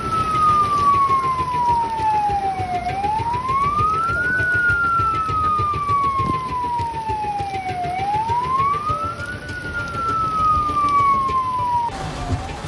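Fire engine siren wailing, its pitch sliding slowly down for about three seconds and then sweeping quickly back up, over and over, over the steady hiss of heavy rain.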